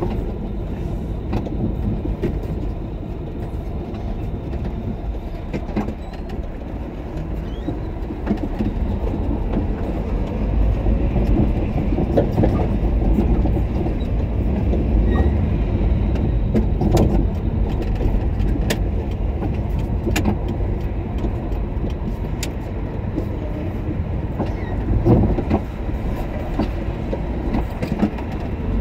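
A car being driven: a steady low rumble of engine and road noise, with scattered small clicks. It grows a little louder around the middle.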